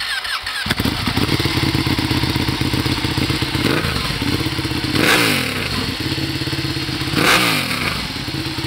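Ducati sport bike engine catching just after its starter whirs, then idling with a steady pulsing beat. The throttle is blipped twice, about five and seven seconds in, each rev rising and falling back to idle.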